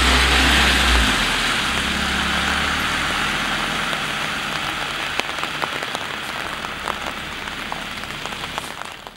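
A small hatchback car driving off over wet asphalt in the rain: its engine is loud and close for about a second, then fades as it pulls away, leaving the hiss of tyres on the wet road and rain pattering with small scattered drips, which die away near the end.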